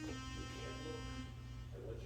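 Synth tone from a Korg RK-100S-series keytar: one bright note rich in overtones, held and then fading out a little past halfway. A steady low electrical hum runs underneath.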